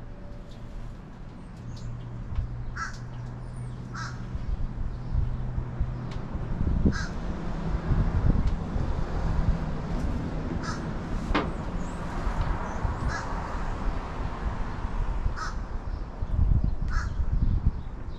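A crow cawing outside, single short caws repeated every second or two, about nine in all. Underneath is a low hum that gives way about a third of the way in to louder low rumbling and handling noise, with one sharp click past the middle.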